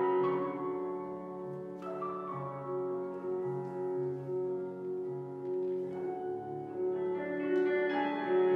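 Piano accompaniment for a slow ballet barre exercise: a classical melody of held notes over an evenly repeating bass line.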